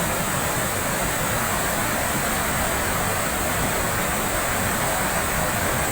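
Cascading waterfall: a steady, loud rush of falling water.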